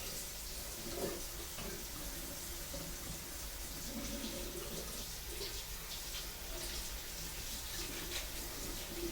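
Steady rushing of water, an even hiss with faint scattered ticks and no clear rise and fall.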